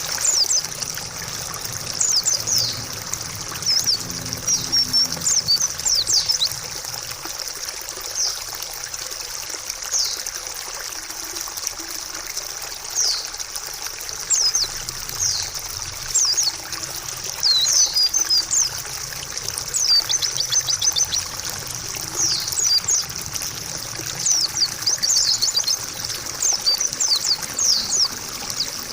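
White-eye (pleci) chirping and twittering in quick, high, down-sweeping notes and short bursts every second or two, over a steady trickle of running water.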